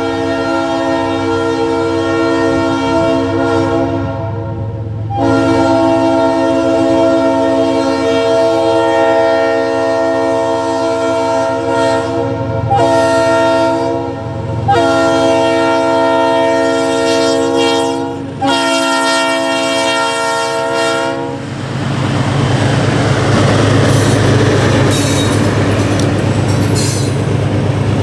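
CSX U23B diesel locomotive sounding its air horn for the crossing: a loud multi-note horn chord in long blasts, the first about four seconds, then held with only short breaks for about fifteen seconds more. About 21 seconds in the horn stops and the train passes close by, rumbling, with its wheels clacking over the rail joints.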